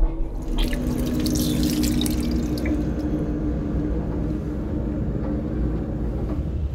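Water running from a train lavatory's washbasin tap into a stainless-steel basin. It starts about half a second in and stops near the end, with a steady hum alongside it and the train's low rumble beneath.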